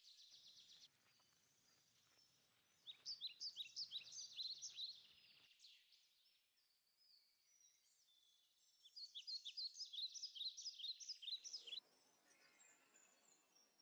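Faint woodland birdsong: quick runs of high chirping notes from small songbirds, in two spells, about three seconds in and again about nine seconds in.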